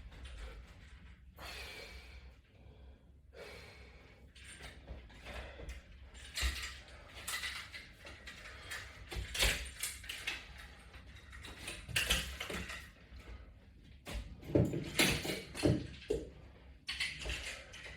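A man breathing hard through a set of resistance band squats and pulls, with short, forceful exhales every second or two that grow louder in the second half, and a few light knocks from the band equipment.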